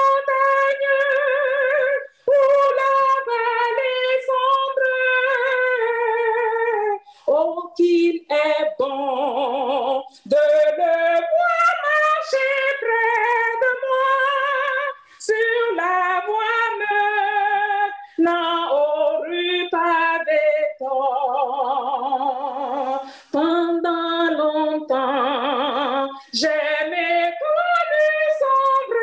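A woman singing a hymn solo and unaccompanied, in long phrases with vibrato and short breath pauses between them, heard through a video-call connection.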